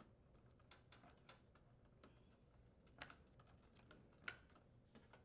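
Faint small clicks and light handling noise of spark wire terminals being pulled off a gas range's spark module, with two sharper clicks about three and four seconds in.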